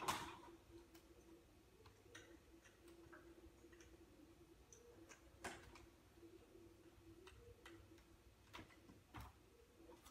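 Near silence with a faint steady hum and a few scattered light clicks and taps, from parts handled while fitting a hard drive into an iMac G3.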